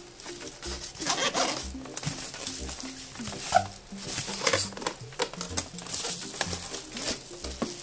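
Plastic wrap crinkling and styrofoam packing rubbing and squeaking as the foam pieces are pulled off a boxed stand mixer, in short handling sounds a little after a second in and again around the middle, over steady background music.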